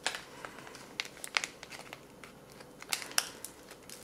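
Drink-powder packet crinkling and crackling in the hands as it is worked open, in scattered sharp crackles that bunch together around the start, about a second in and about three seconds in.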